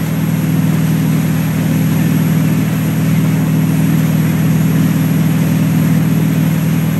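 Tow boat's engine running with a steady low drone at constant towing speed, over the rush of the churning wake water.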